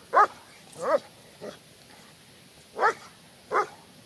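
German shepherd barking on a chain at her territory: two sharp barks close together at the start, a fainter one, then two more near the end.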